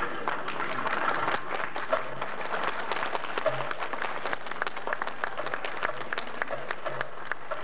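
Audience applauding, many hands clapping in a dense patter just after a piece of music ends.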